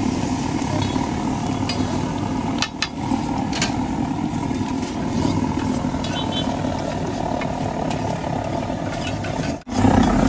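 Steady low rumble of a busy street-food stall, with faint background voices and a few light ticks. The sound cuts out abruptly about three seconds in and again near the end.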